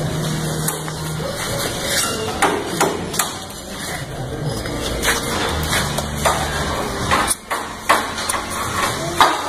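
Irregular knocks and clanks, about eight sharp ones spaced unevenly, over a steady low hum.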